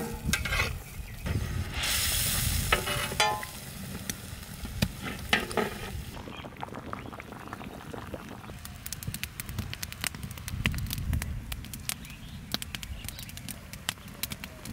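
Spiced gravy with a whole cow head cooking in a large iron karai: a ladle stirs and scrapes the pot with a sizzling hiss over the first few seconds, then the gravy bubbles steadily with many small pops.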